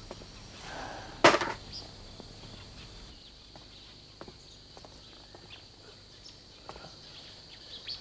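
A single sudden loud knock about a second in, with a short tail. Faint scattered clicks and rustles follow over a steady high hiss.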